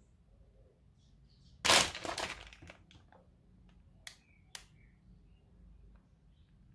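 Plastic biscuit packet crinkling as it is handled: a loud crackling burst about two seconds in, then a couple of sharp clicks.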